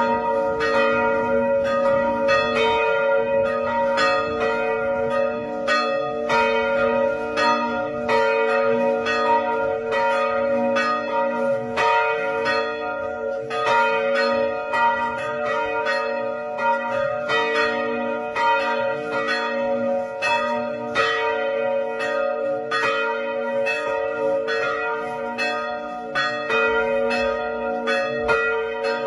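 Several church bells ringing together in a fast, continuous peal: overlapping strikes, several a second, over a steady hum of bell tones that sustains between them.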